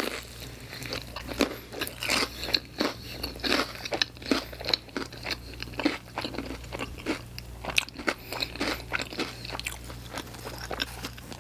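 Close-up crunching and chewing as bites of pizza topped with hot Cheetos are eaten, with many sharp, irregular crunches from the chips.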